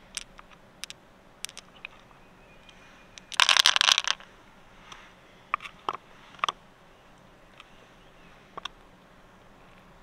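Small hard clicks of pearls and mussel shell being handled, with a dense clattering rattle of clicks about three seconds in and a few single clicks after it.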